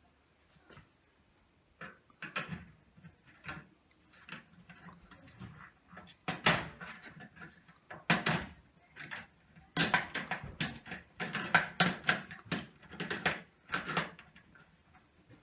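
Irregular clicks, knocks and rattles of hands and tools working at a fluorescent light fixture, prying the old ballast out. The strikes come thicker and louder from about halfway on.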